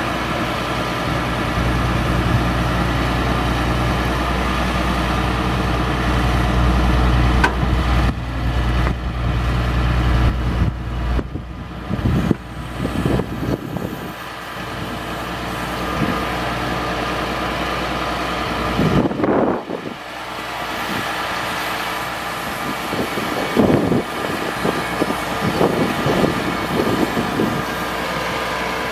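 Ford F750 digger derrick truck's engine running steadily to drive the boom hydraulics while the derrick boom is lowered from upright. The engine note changes several times, with short louder surges in the second half.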